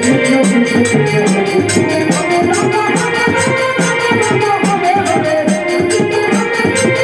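Live hari kirtan devotional music: an electronic keyboard playing a sustained, organ-like melody over a fast, steady percussion beat with a rattling, shaker-like sound.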